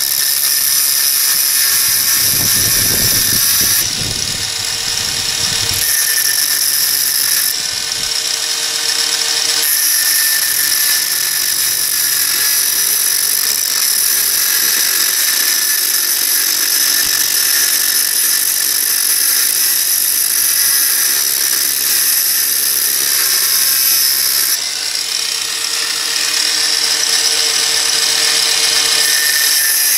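Abrasive cut-off disc grinding a lengthwise groove into the threads of an old steel head bolt held in a vise, making a steady high-pitched whine, to turn the bolt into a thread-cleaning tool. The grinding sound changes briefly three times, early, around eight seconds in and near the end.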